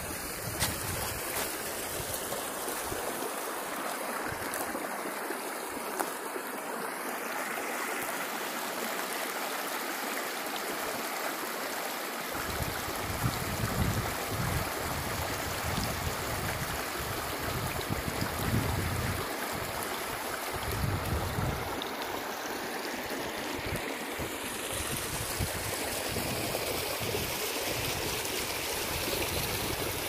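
River water rushing and splashing over sandstone rock ledges and small cascades: a steady, even rush. Low gusty rumbles come and go from about twelve seconds in.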